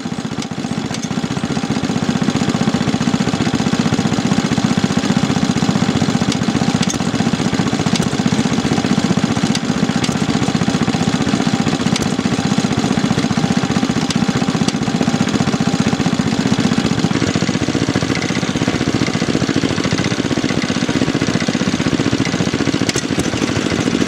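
Kubota Auto Engine BZGR-type gasoline stationary engine running with a fast, even firing beat. It picks up over the first couple of seconds, then holds a steady speed.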